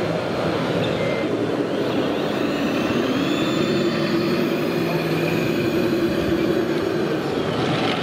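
Engine sound of a 1:16 scale radio-controlled Scania truck pulling a tipper trailer. It rises in pitch about three seconds in and holds there, over a steady din of other model machines and the hall.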